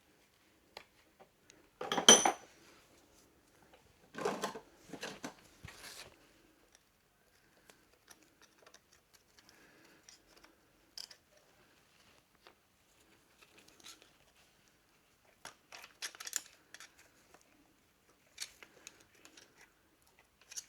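Metal tools and engine parts being handled, clinking and clattering on and off. There is a sharp ringing clank about two seconds in, a run of clatters soon after, more near the end, and quiet handling between.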